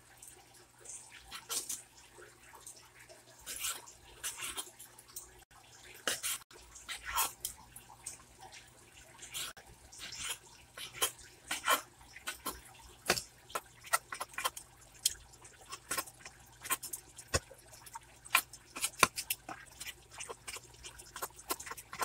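A kitchen knife cutting tender boiled pork belly into small pieces, with irregular wet squishes and quick taps of the blade on the cutting board.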